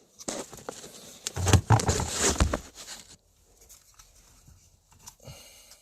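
Plastic clicks, rattling and scraping as the headlight switch's retaining clips are squeezed and the switch is worked loose from the dashboard of a 2014 Dodge Durango. The handling is busiest in the first three seconds, then only faint small noises.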